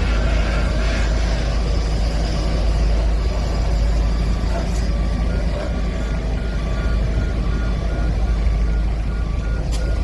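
Heavy earth-moving machine's diesel engine running steadily with a deep rumble, while its reversing alarm beeps at an even pace, clearest in the second half.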